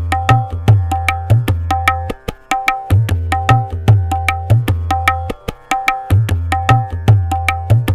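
Tabla playing the 16-beat teentaal theka at fast drut tempo, 150 bpm, with the right-hand drum tuned to C: a quick, even run of ringing strokes on the dayan over deep bass strokes from the bayan. The bass drops out briefly about two seconds in and again about five seconds in, the khali part of the cycle.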